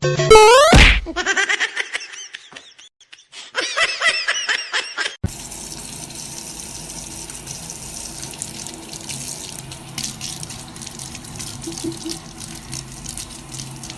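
A quick rising sweep, then a few seconds of short pitched sounds bending up and down. About five seconds in, a steady rush of running water starts and continues.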